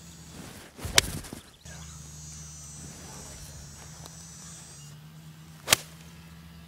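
Two golf iron shots struck off turf. About a second in, a club swishes through the air and hits the ball with a sharp crack; this 'whoosh' right before contact is what the players listen for as the sign of a well-timed strike. A second sharp strike comes a little under five seconds later.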